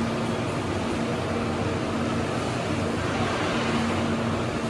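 Steady machinery noise: a constant rushing drone with a low hum that fades in and out every second or so.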